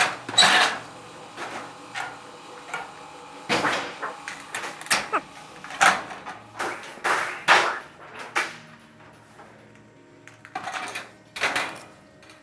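Steel barge capping flashing handled and set down over Klip Lok roof sheeting: irregular metallic knocks, clatters and scrapes, about eight loud ones, fewer and fainter near the end.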